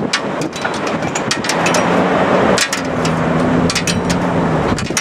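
Loud vehicle noise: a steady rumbling hiss that swells in the middle, with a low engine hum for about three seconds and many sharp clicks or knocks throughout.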